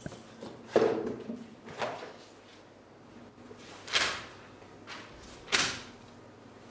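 Books and papers being handled: four short knocks and rustles as they are picked up, shifted and leafed through. The first is the loudest and duller, and the later ones are papery swishes.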